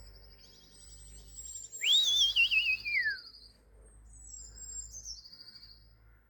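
Birds calling: high trilled whistles, then about two seconds in a loud warbling call that wavers and falls in pitch for about a second, from a magpie. The whistles come again a couple of seconds later.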